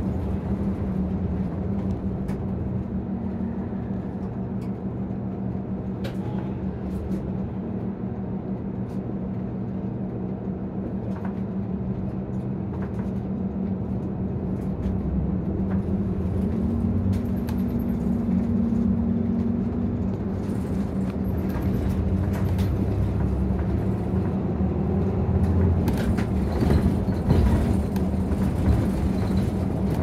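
Inside a Nissan Diesel ADG-RA273MAN city bus under way: the diesel engine drones steadily over road rumble, with scattered small rattles. The engine note shifts about halfway through, and the sound grows louder near the end.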